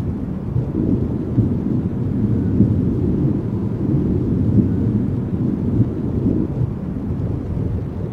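A steady low rumble with most of its weight in the bass, swelling and easing slightly but without distinct strikes or a pitch.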